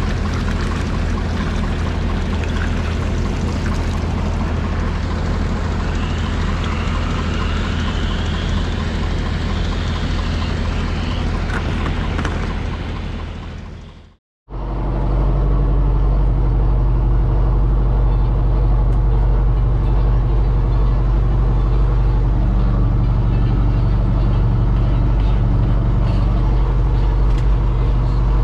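Kubota tractor's diesel engine running steadily. About halfway through the sound fades out briefly, then returns heard from inside the tractor cab, steady, with a heavier low hum.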